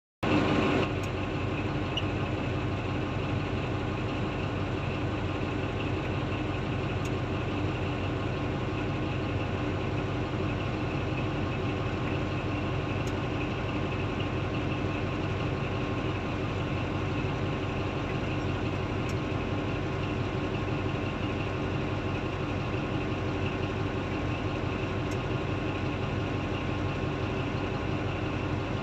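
Heavy diesel engines of a large Komatsu hydraulic mining excavator and a Komatsu D155A bulldozer running steadily: an even drone with a few faint humming tones and no change in level.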